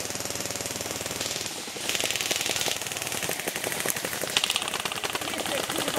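Airsoft guns firing on full auto: long bursts of rapid, evenly spaced rattling shots, with louder bursts about two seconds in and again past four seconds.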